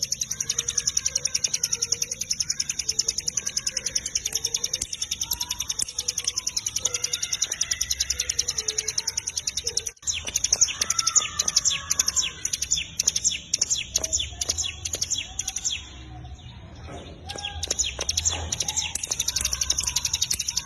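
Hill prinia (cigun) singing a fast, unbroken rattling trill of high, rapidly repeated notes. The trill drops out for about a second and a half near the end, then resumes.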